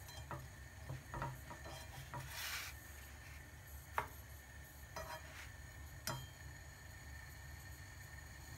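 A black spatula scraping and tapping against a non-stick frying pan as it slides under a tortilla to flip it: a few light knocks and a brief scrape, the sharpest tap about four seconds in, then only a low steady hum.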